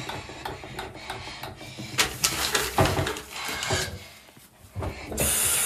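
Hands rubbing together over a bathroom sink, with small clicks and rustles. About five seconds in a faucet is turned on and water runs steadily into the basin with a hiss.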